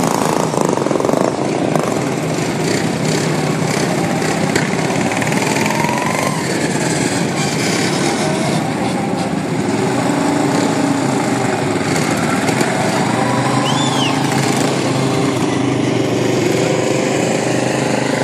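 Several super stock racing lawn mower engines running hard, their pitch rising and falling as they accelerate and ease off.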